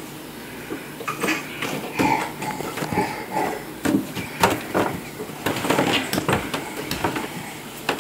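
Irregular knocks, clicks and clatters of household objects being handled, with a few brief faint vocal sounds, possibly a toddler's, in between.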